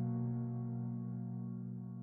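Sustained pad chord from the Baby Audio Atoms physical-modelling synthesizer, held and slowly fading away.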